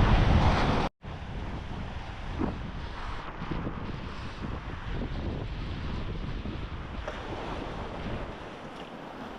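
Surf breaking on a beach, with wind buffeting the microphone. The wind rumble is loud for about the first second, cuts out abruptly, then gives way to steadier, quieter surf and wind.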